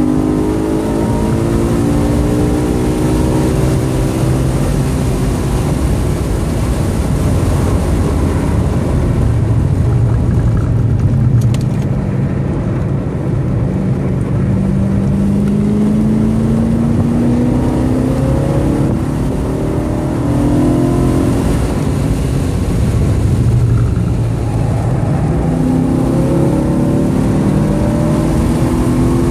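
2013 BMW M3's V8 engine and tyre noise heard from inside the cabin at track speed. The engine note falls as the car brakes hard from high speed for a corner, then climbs as it accelerates out. The note dips and climbs again near the end.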